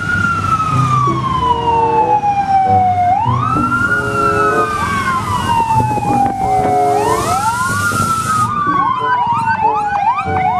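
Fire-engine siren wailing. Each cycle rises quickly and falls slowly, repeating about every four seconds. Faster, shorter sweeps pile in over it in the second half.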